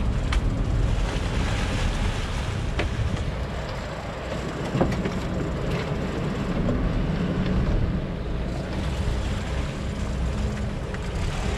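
Sport-fishing boat's engine running with a steady low rumble, with wind on the microphone and churning water at the stern. A few light clicks sound now and then.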